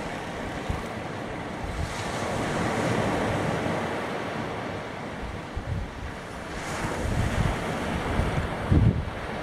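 Surf breaking and washing up a sandy beach, swelling twice: around two seconds in and again from about seven seconds. Wind buffets the microphone with low rumbling gusts, strongest near the end.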